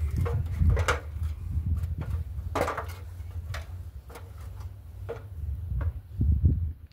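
Aluminum ladder knocking and clunking several times as a man climbs it against a brick wall, over a low rumble of wind on the microphone that swells around a second in and again near the end.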